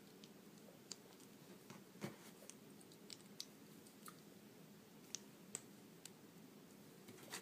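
Faint, scattered light clicks of small plastic LEGO minifigure parts being handled, about ten in all, over quiet room hiss.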